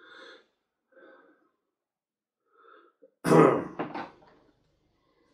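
A man clears his throat once, sharply, about three seconds in, after a few faint short sounds.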